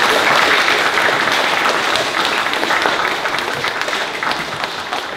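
An audience of young schoolchildren applauding, dense clapping that is loud at first and gradually dies away.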